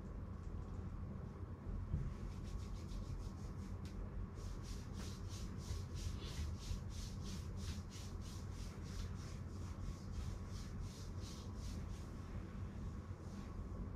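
Hands rubbing over skin and hair in a rhythmic face and head massage, soft brushing strokes about three a second that start a couple of seconds in and fade out near the end, over a steady low hum.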